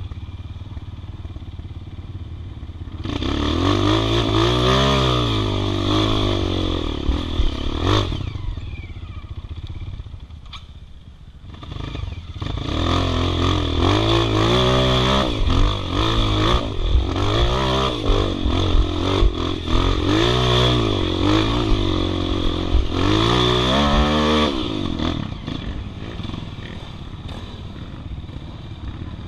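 Single-cylinder trail motorcycle engine revving hard in repeated rising and falling sweeps, with a few-second lull near the middle. It settles to a lower, steadier running sound at the start and for the last few seconds.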